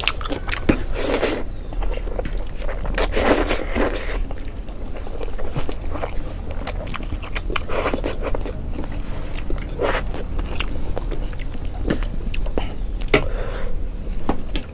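People eating jajangmyeon (black bean noodles): chewing, biting and slurping, with many sharp clicks and crunches, over a low steady hum.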